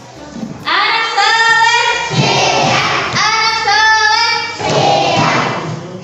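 Children singing together in unison, a sung phrase of held notes that starts about a second in and runs for several seconds.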